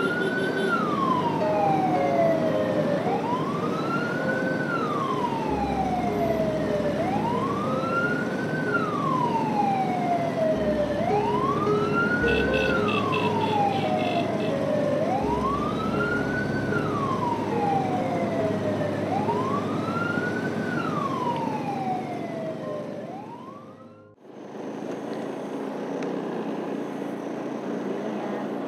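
Vehicle siren wailing, each slow rise and fall in pitch taking about four seconds, repeated six times, then cutting off about 24 seconds in. Steady road and engine noise runs underneath.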